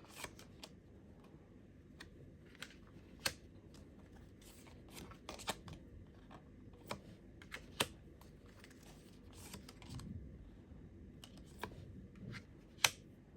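Tarot cards being handled on a table: scattered faint clicks and taps, a dozen or so at irregular intervals, with a little soft rustling.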